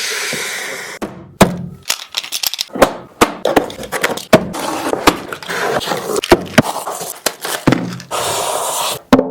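Unboxing handling noise: a cardboard box and its packaging being opened and moved about, with many sharp knocks, thuds and rustles. A steady rushing noise runs for about the first second.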